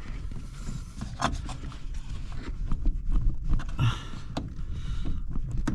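Scattered small clicks, knocks and rustling from hand work on the brake pedal's pushrod pin under the dash of a 1965 Ford Falcon, over a low steady rumble.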